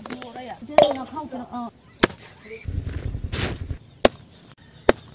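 Cleaver chopping raw meat on a wooden chopping block: four sharp, separate strikes a second or so apart.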